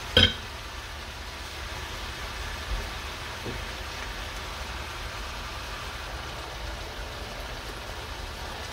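Sliced bell peppers and onions sizzling steadily in a stainless steel frying pan, with one sharp clack just after the start.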